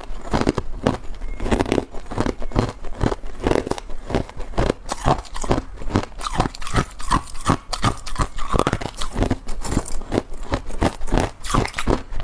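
Crushed ice being chewed close to a clip-on lapel microphone: rapid, loud crunches, about four a second.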